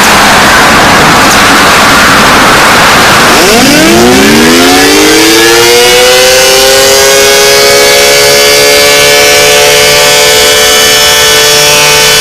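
Civil defense siren winding up: a loud rushing noise for about three seconds, then a two-note chord that rises from low to a high pitch by about six seconds in and is held steady.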